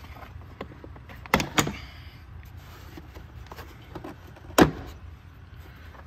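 Plastic retaining clips on a car's battery compartment cover snapping loose as they are pried off by hand: two sharp snaps close together about a second and a half in, then a louder one near the end, with small plastic clicks between.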